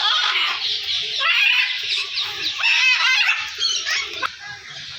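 Many birds calling and chirping at once, with short high-pitched calls overlapping, busiest between about one and three and a half seconds in.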